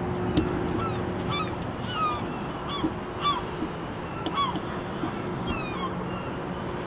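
Birds calling: a rapid, irregular string of short calls that each slide downward in pitch, over a low steady hum.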